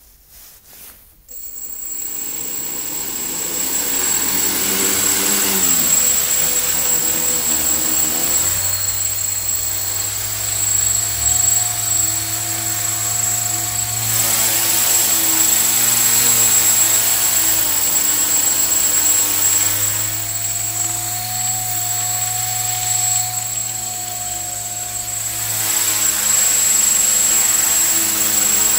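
Electric motors and propellers of a homemade multirotor spinning up about a second in and then running, with a steady high electronic whine over the propeller drone. The motor speed rises and falls several times as the throttle changes.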